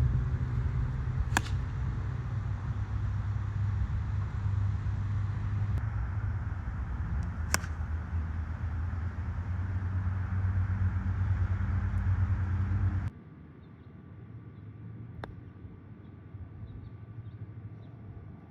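Golf club striking a ball: sharp cracks, two of them over a steady low rumble, then after an abrupt cut one more in a much quieter stretch.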